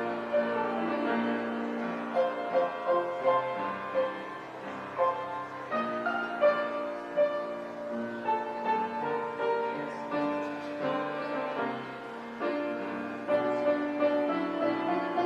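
Piano playing a melody over held chords, notes struck steadily one after another.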